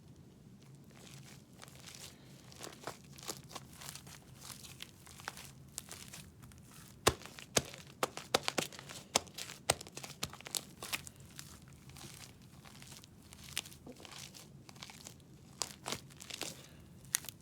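Sticky homemade slime with shaving cream mixed in being squeezed and stretched by hand, giving irregular wet clicks and crackling pops. It starts faint, grows busy about seven seconds in with a sharp snap, then thins out toward the end.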